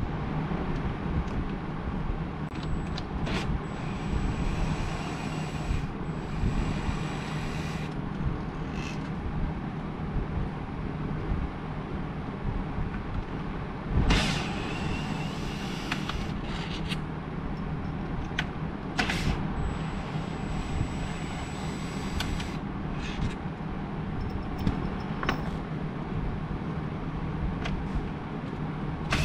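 Steady low hum and noise, with scattered sharp clicks and knocks of tools and parts as a cordless drill/driver is worked at the steering column.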